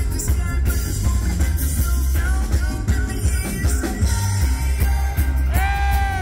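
Live reggae-rock band playing, with heavy bass guitar, drums and electric guitar under singing; about five and a half seconds in, a voice holds one long sung note.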